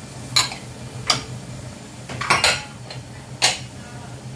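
Kitchenware clinking: four sharp clinks of dishes and utensils about a second apart, over a steady low hum.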